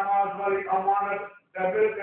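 A man's voice chanting in a melodic recitation style, holding long steady notes in phrases, with a brief pause for breath about one and a half seconds in.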